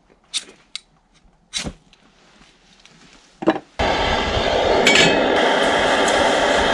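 A few light clinks and knocks, then about four seconds in an MSR Dragonfly liquid-fuel camping stove's burner comes on with a sudden, loud, steady rush of flame.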